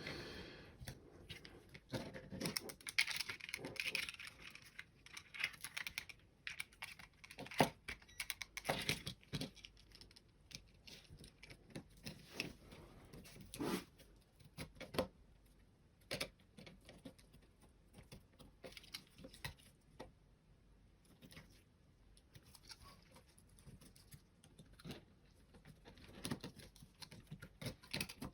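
Plastic parts of a Razer Diamondback mouse being handled and fitted back together during reassembly: irregular light clicks, taps and knocks, with a spell of scraping and rustling a few seconds in.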